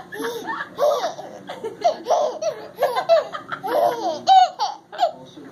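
Baby laughing in repeated bursts, with a high-pitched squeal a little past four seconds in.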